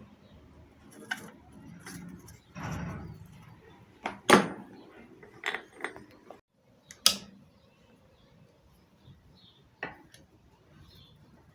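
Metal pump parts and hand tools clinking and knocking during reassembly: scattered sharp metallic knocks, the loudest two about four and seven seconds in, with a short scraping rustle near three seconds.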